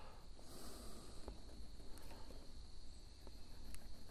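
Faint steady high-pitched insect trill, with a few light ticks and a brief scratch about half a second in as a marker is worked against the tape on the wooden plate.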